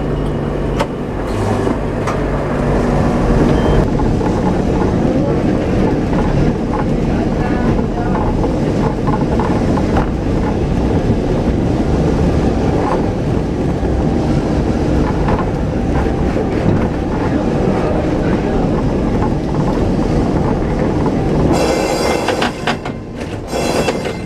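Vintage Lisbon route 28 tram running along its street rails, heard from on board: a steady rumble of motor and wheels with frequent irregular clicks and knocks from the track. Near the end a brief harsher, hissing noise joins in.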